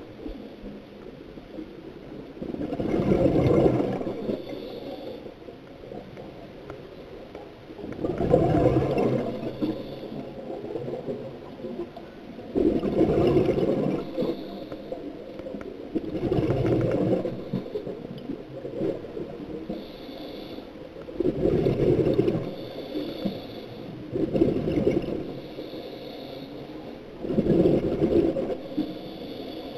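Scuba diver's exhaled breath bubbling out of the regulator, in bursts about every three to five seconds, seven times in all, with fainter hissing between them.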